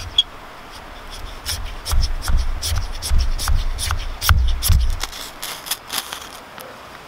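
Knife blade and ferro rod scraping the outer bark of a dead silver birch into fine shavings, a quick series of short rasping strokes with dull knocks on the log. Near the end the ferro rod is struck with the knife, showering sparks into the resin-rich birch shavings.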